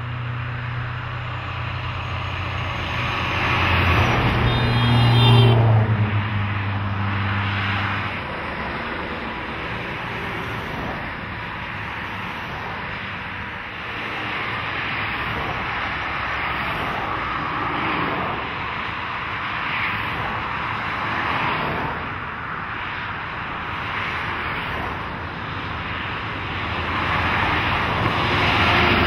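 Heavy trucks and cars passing on a highway. A truck's diesel engine drones low and is loudest about five seconds in, then fades. After that, tyre noise from passing cars rises and falls, and another truck draws close and grows louder near the end.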